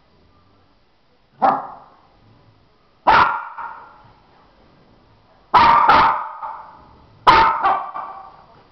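Dog barking in sharp single barks, then two quick pairs of barks near the end.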